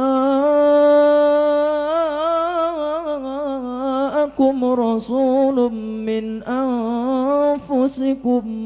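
A man's solo voice reciting the Quran in melodic tilawah style into a microphone. He draws out long, wavering ornamented phrases on a held note, pausing for a breath about four seconds in and breaking into shorter phrases near the end.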